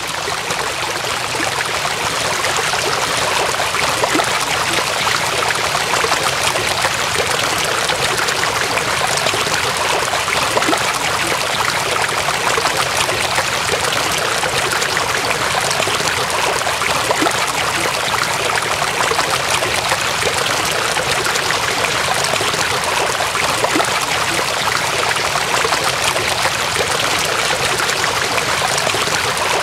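Steady rushing of water: an even, unbroken hiss of flowing floodwater.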